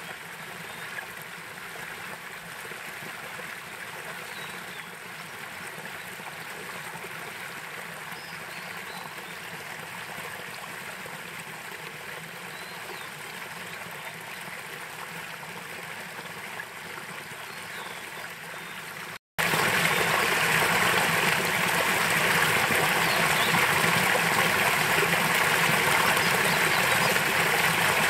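Headwater mountain stream running, a steady rush of water. A little over two-thirds through, the sound drops out for an instant and comes back noticeably louder.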